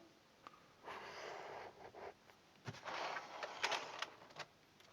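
An old mechanical keyboard's plastic case is handled and shifted on a desk: a short scrape, then a run of light clicks and knocks.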